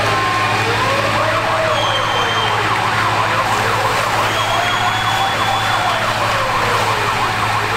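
Emergency-vehicle sirens sounding together: a slow rising-and-falling wail and a faster, rapidly repeating yelp, over a steady low hum.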